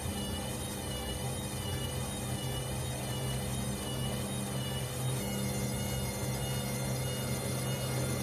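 Candy CS1292D3 front-loading washing machine in its final spin: the belt-driven motor whines and the drum hums steadily. The whine wavers in pitch at first, then holds steady from about five seconds in.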